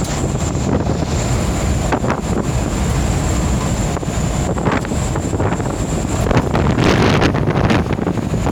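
Wind buffeting the microphone: a loud, steady low rumble that swells in gusts, with a thin high whine running under it.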